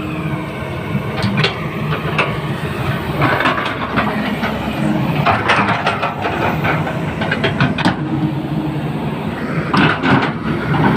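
Heavy tracked diesel machinery working: an engine runs steadily under irregular metallic clanks and squeaks from the crawler tracks and undercarriage.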